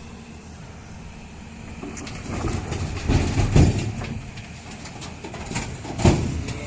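A heavy vehicle running with a low rumble and irregular clanks and knocks, loudest around the middle, with a sharp thump about six seconds in.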